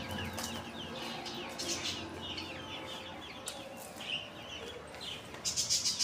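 Young chickens peeping, a steady stream of short high chirps from several chicks at once. A scratchy rustling comes in near the end.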